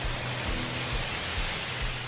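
Steady rush of a waterfall, an even hiss of falling water, with soft low thumps recurring about twice a second.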